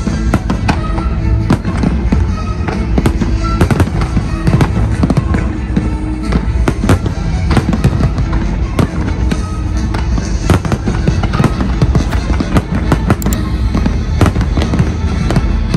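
Aerial firework shells bursting, many sharp bangs in quick, irregular succession, over continuous music.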